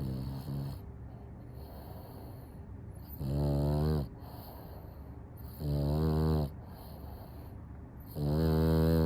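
French Bulldog snoring: a short faint snore at the start, then three loud buzzing snores about two and a half seconds apart, each lasting under a second. This is the snore the breed is known for.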